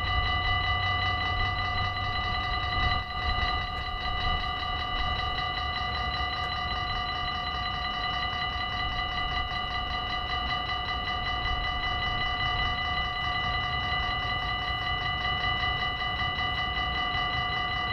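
Dutch level-crossing warning bell ringing steadily while the crossing is closed, signalling an approaching train, over a low rumble.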